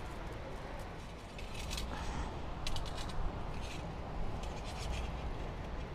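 Handling a bundle of thin gold craft wire strands strung with glass seed beads: faint rustling with short scratchy clicks, clustered about a second and a half in and again around three seconds in, over a low steady background hum.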